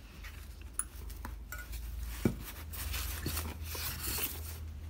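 Porcelain teaware clinking and knocking lightly against the glass shelves of a display cabinet as pieces are set in place, a few separate taps with the sharpest about two seconds in. Cloth rustles close by through the second half.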